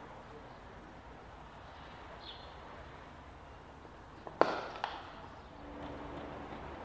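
Cricket bat striking the ball: one sharp crack about four seconds in, followed half a second later by a fainter click, over a low, steady open-air ground hush.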